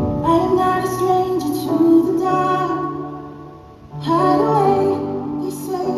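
Music with a woman singing a slow melody, in two phrases with a brief dip a little before four seconds in.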